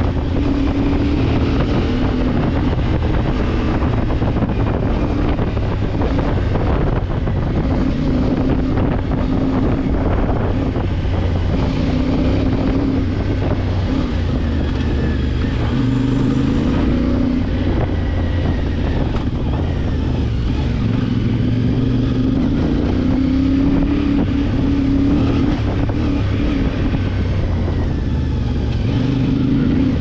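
CFMOTO 450MT motorcycle's parallel-twin engine running under way, its pitch rising and falling again and again as the throttle is worked.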